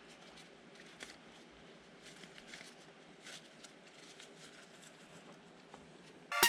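Faint rustling and a few light clicks of handling over a low hiss, then electronic dance music with a beat cuts in suddenly near the end.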